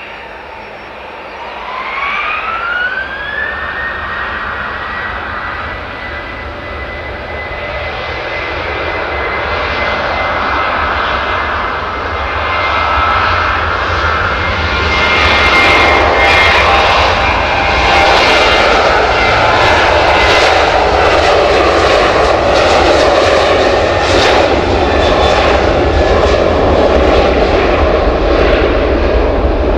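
Boeing 737-800's CFM56 jet engines spooling up for takeoff. A whine rises in pitch about two seconds in and then holds steady, while the engine noise grows louder and turns crackly as takeoff thrust builds.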